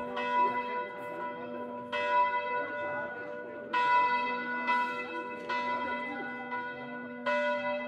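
Church bells ringing, a new stroke roughly every second over a steady ringing tone that carries on between strokes.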